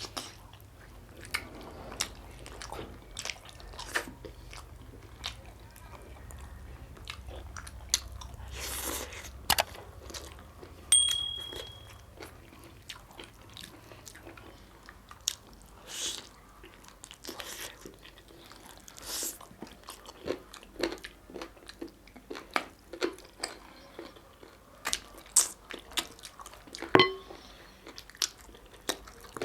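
Close-up eating sounds: a person chewing and biting into butter naan and butter chicken, with irregular wet mouth clicks and smacks. There are a couple of short high clinks among them.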